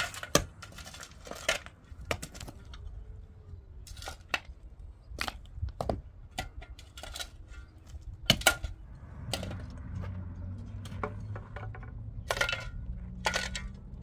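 Pickaxe and shovel striking and scraping stony, rock-filled dirt: irregular sharp metal-on-stone chinks and crunches, about one or two a second. From about nine seconds in, a low steady engine hum runs underneath.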